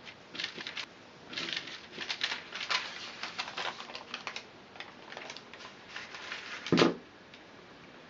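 Dry crackling and rustling of a paper-backed sheet of flattened barley straw being handled and peeled off the cut-out letters, in irregular scratchy bursts, with one louder knock just before seven seconds in.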